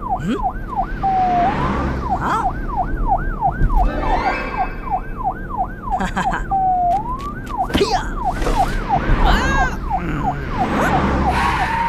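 Police car siren in a fast yelp, its pitch sweeping up and down about three times a second. Twice it breaks into a short low tone and a single rising sweep before the yelp resumes, over a low rumble.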